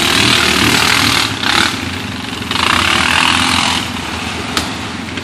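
A four-wheeler (ATV) engine running under throttle as the quad climbs a loose dirt bank, with loud bursts of hiss laid over it that come and go. A single sharp click sounds near the end.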